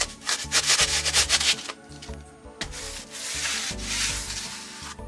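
Hand saw cutting through set expanding foam: a quick run of rasping back-and-forth strokes in the first second and a half, then a few slower, longer scrapes.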